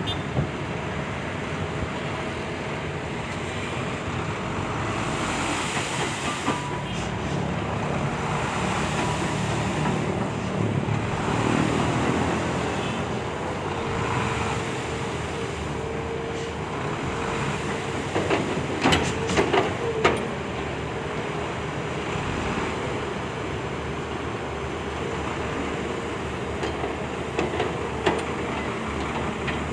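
Excavator engine running under load with its hydraulics working, a steady rumble with a held whine through the middle, and a quick cluster of metal clanks about two-thirds of the way through.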